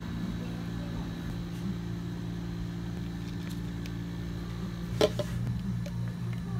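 Steady mechanical hum of running cafe equipment, with a few light clicks and one sharp knock about five seconds in as a plastic drink cup with its lid is handled on the counter.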